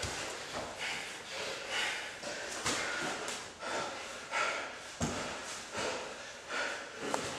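Hard, rhythmic breathing of grapplers mid-roll: forceful exhalations about once a second, with a few thumps of bodies shifting on the mats.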